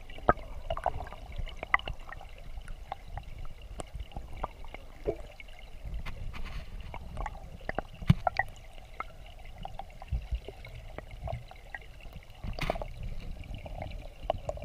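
Shallow mountain stream heard with the microphone underwater: a steady low rush of flowing water, with many scattered sharp clicks and ticks.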